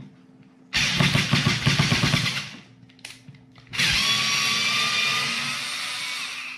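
TECCPO 4 V cordless screwdriver driving a screw into plywood: a rough, pulsing motor run of nearly two seconds, then after a short pause a steadier motor whine of almost three seconds that slowly fades.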